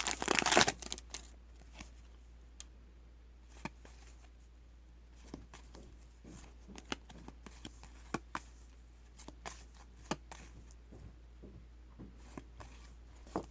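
Foil trading-card pack wrapper crinkling in the first second, then soft scattered clicks and slides of trading cards being handled and flipped through one by one.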